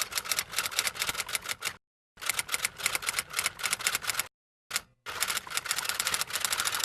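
Rapid runs of sharp clicks, about eight a second, like typing, in three bursts with short silent gaps between them.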